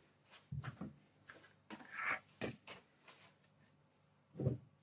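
Light, scattered knocks and clicks of a spoon and a plastic butter tub being handled on a kitchen countertop, with a duller knock near the end.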